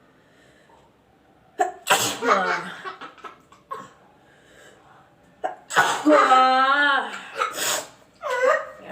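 A woman sneezing loudly several times, each sneeze a sudden burst carried into a voiced cry. The sneezes are brought on on purpose by tickling her nostril with a grass-broom stalk.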